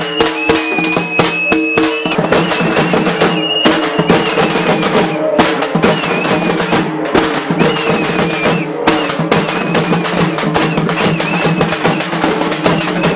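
A band of drummers beating large double-headed drums with sticks in a fast, dense rhythm. A whistle blows high, shrill notes over the drumming in the first couple of seconds and again, wavering, in the middle.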